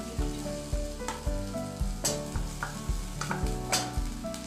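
Chopped onion with freshly added ginger-garlic-chilli paste sizzling in hot oil in a kadai, stirred with a wooden spatula that knocks and scrapes against the pan a few times. Background music with a steady beat plays underneath.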